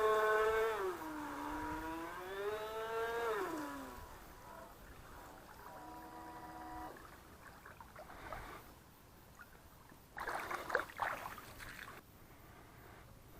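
Electric motor of an RC model boat whining: its pitch drops, climbs back, then falls away as the motor slows to a stop. About halfway through comes a second short, steady whine, and near the end a brief burst of noise.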